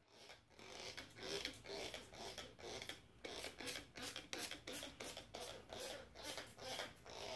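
Hand trigger spray bottle pumped over and over, spritzing liquid: a quick, even run of short hissing squirts, about three a second.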